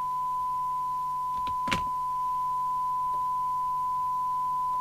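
Steady 1 kHz test tone from the CB radio's receiver audio during a SINAD sensitivity measurement, over a low hum, with a single sharp click a little under two seconds in.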